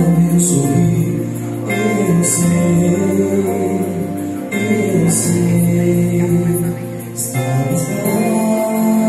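Mixed vocal group singing a gospel song together, holding long notes, with a lead voice on a microphone.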